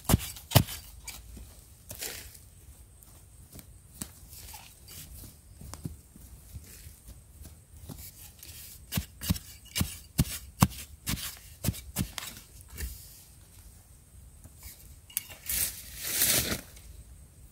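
Hand digging in dry, crumbly soil to uncover wild yam tubers: irregular short scrapes and knocks as earth is dug and pulled away, busier in the middle, with one longer scrape near the end.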